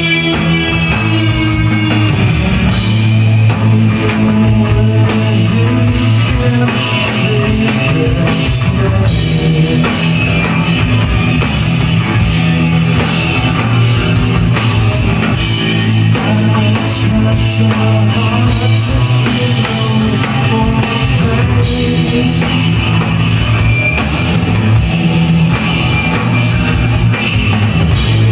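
Rock music with electric guitar and a drum kit, a steady driving beat and a singing voice at times.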